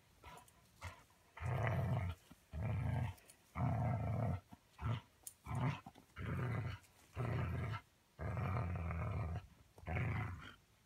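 Dog growling in a run of about eight growls, each up to about a second long with short gaps between, while tugging on a toy held by its handler: play growling in a tug game.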